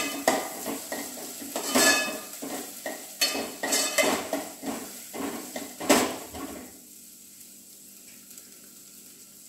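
Steel spoon stirring and scraping chopped onions, ginger and garlic frying in oil in a metal pot, with irregular clinks against the pot and sizzling. The stirring stops about two-thirds of the way through, leaving only a faint steady hiss of the frying.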